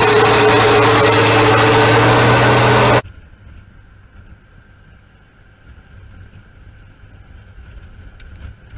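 A loud engine running steadily that cuts off abruptly about three seconds in, leaving a faint low rumble with a thin steady whine.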